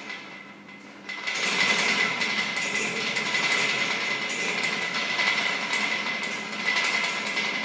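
Steel pull-up rig rattling and creaking as a man kips and swings on its bar. It starts a little over a second in, after a light knock as his hands catch the bar, and then runs on as a loud, continuous metallic grinding that swells and eases a little with the swings.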